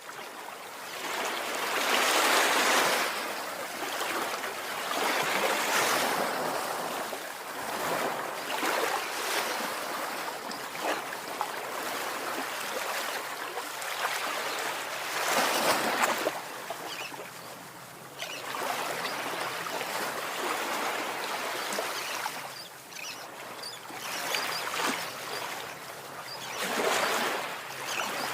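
Ocean surf: waves breaking and washing in, a rushing noise that swells and ebbs at irregular intervals.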